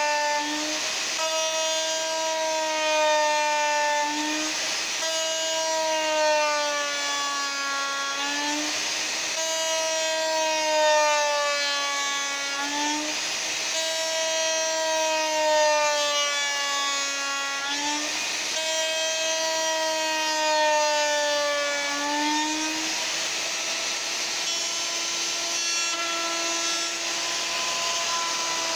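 Hand-held electric router running at full speed with a steady high whine, its bearing-guided bit cutting into tulipwood (yellow poplar) along a template. The motor's pitch sags a little under load on each stroke and picks back up between strokes, every four or five seconds.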